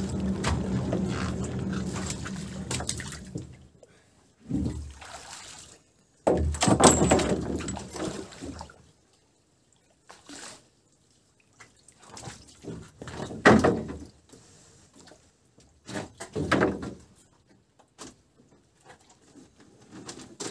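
Water sloshing and splashing with scattered knocks and rattles against a wooden boat's hull as a fisherman works a pole and a net from the bow. A steady low hum stops about three and a half seconds in.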